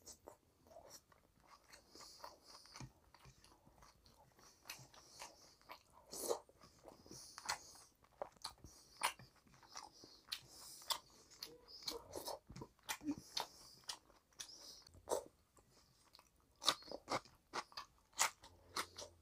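Close-miked eating sounds: a man chewing rice and chicken curry eaten by hand, with wet lip-smacks and mouth clicks. The clicks come thicker and faster in the last few seconds.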